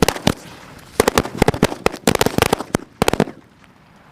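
Firecrackers going off in a rapid, irregular series of sharp bangs, densest in the middle, then dying away about three seconds in.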